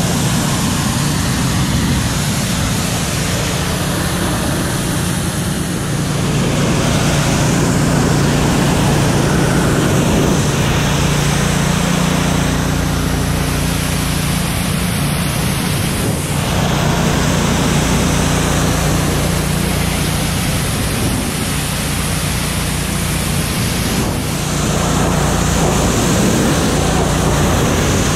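Pressure washer running steadily, its pump motor humming under the hiss of the high-pressure water jet spraying onto a truck's body panels and wheel well.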